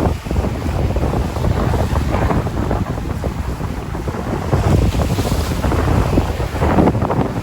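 Sea waves washing onto a shore with wind blowing across the microphone: a loud, continuous rush that swells a few times as waves break.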